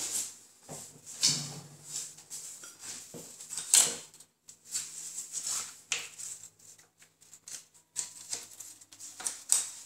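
Scattered clicks, taps and rustles of hands handling tools and the camera, with the sharpest knock a little under four seconds in, just before drilling begins.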